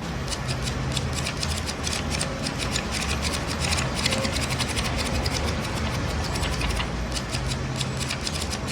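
Rapid, irregular mechanical clicking over a low steady hum.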